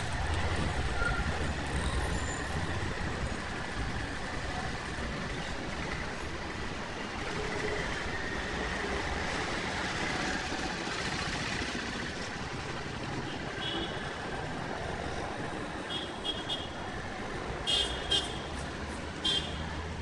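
Busy city street traffic: a steady wash of road noise from passing cars and trucks with a low engine rumble underneath. In the last few seconds come a handful of short, high-pitched sounds.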